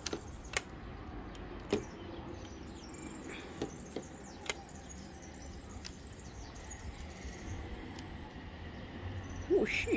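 A handful of sharp, isolated clicks of LEGO plastic parts knocking and snapping as a brick-built toy gun is handled and rubber bands are fitted to its mechanism.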